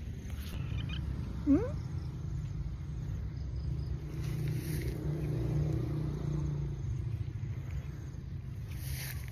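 A cat gives one short, rising meow about a second and a half in, over a steady low rumble.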